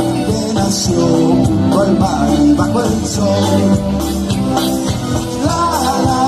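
Live band music from electric guitars, bass, keyboard and drums, with male voices singing near the end.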